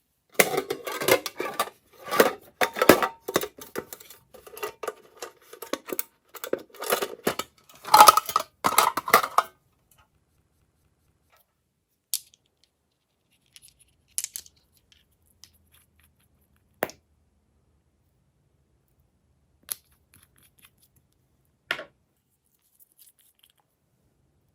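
Slime being squished and worked by hand, giving a dense run of sharp crackling clicks and pops for the first ten seconds or so. After that come a few isolated single pops.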